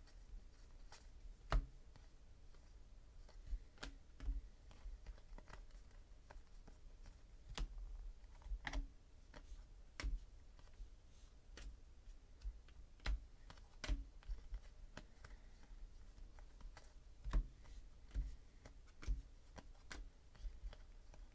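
Stack of trading cards being handled and sorted by hand: faint, irregular sharp clicks and snaps of card edges, roughly one every second or two, a couple of them louder.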